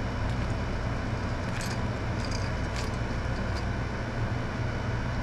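Steady low machine hum, with a few faint light clicks from small parts being handled.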